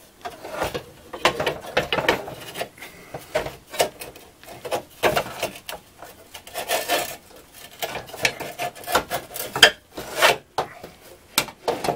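Metal window regulator scraping, rubbing and knocking against the door's inner frame as it is worked into the door by hand, in irregular scrapes and clanks, with a longer scrape about seven seconds in.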